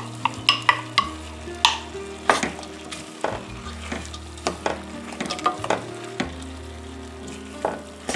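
Diced potatoes dropping into a stainless steel pot of lentils, then a wooden spoon stirring them, with repeated short knocks and scrapes of the spoon against the pot. Underneath, the lentils and soffritto sizzle in the oil.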